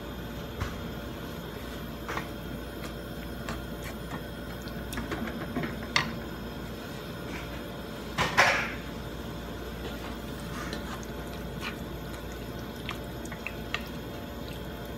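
Wooden spatula stirring chicken pieces in a thick marinade in a nonstick frying pan: scattered knocks and scrapes against the pan, the loudest a scrape a little past halfway.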